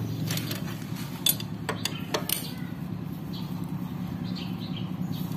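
Sharp metallic clinks of a T-handle wrench on the starter motor's mounting bolts as they are undone, several in the first two and a half seconds, over a steady low hum.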